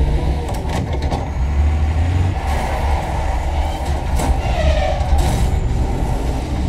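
Action-movie sound effects of a heavy truck driving hard, played through JTR Noesis 212HT speakers and a Captivator 4000ULF subwoofer and heard in the room: a deep steady rumble with several sharp knocks and crashes, two of them about four and five seconds in.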